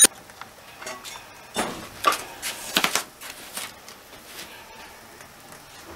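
A handful of light knocks and clicks in a small, quiet room, with the loudest cluster about two to three and a half seconds in: brass puja dishes and a match being handled while a small brass oil lamp is lit.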